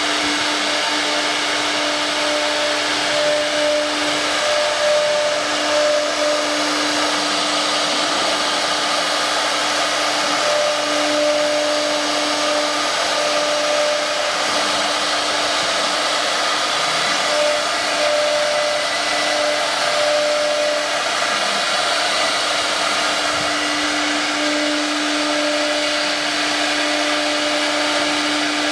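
CNC wood router's spindle running at high speed while its bit engraves a wooden board: a steady whirring hiss of the cutting, with a steady hum that fades in and out several times as the cutter moves.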